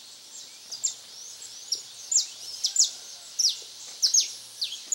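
Songbirds chirping at dawn: a series of sharp, high-pitched notes that sweep quickly downward, with a few upward slides, repeating irregularly about one to two times a second.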